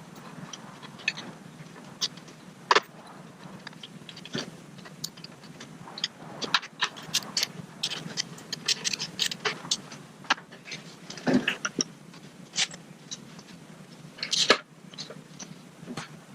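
Irregular light clicks, taps and scrapes, with a few louder knocks, over a steady low hum.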